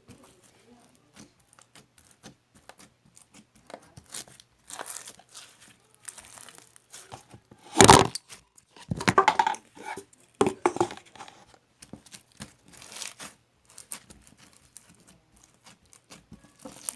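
Crinkling and rustling handling noises, like paper or plastic being crumpled and torn, with scattered small clicks. The loudest bursts of crinkling come just past the middle.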